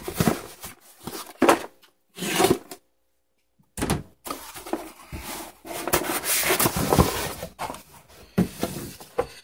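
Cardboard shipping box being handled and its flaps pulled open: irregular scraping and rustling of cardboard and paper, which stops for about a second around three seconds in.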